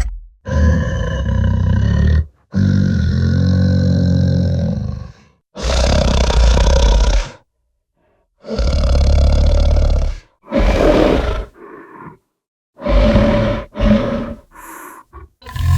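Designed bear-monster roars and growls, deep and pitched, about seven separate calls of one to three seconds each, split by short silences, with a few fainter short growls between them.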